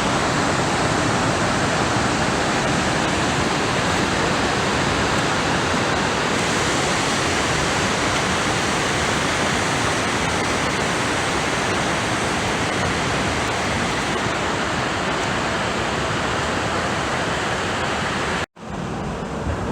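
Loud, steady rushing noise with no distinct tones or rhythm, cut off abruptly about a second before the end.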